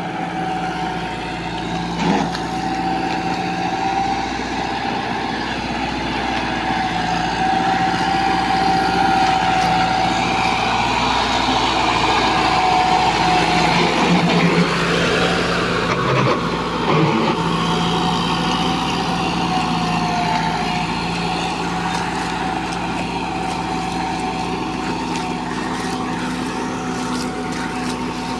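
Combine harvester running steadily: an engine drone with a constant high whine. The noise swells in the middle and eases off again, with a short knock about two seconds in and another past the middle.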